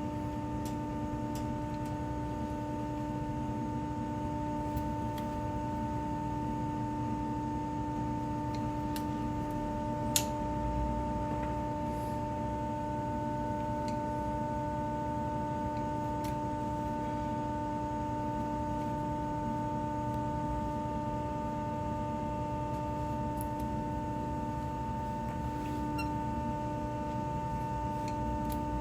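A steady machine hum made of several fixed tones. Scattered light clicks sound over it, and a sharper knock comes about ten seconds in.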